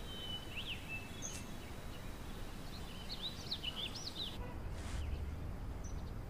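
Small birds chirping over low outdoor ambience, a scatter of short high chirps that stops about two-thirds of the way through, leaving a duller low rumble.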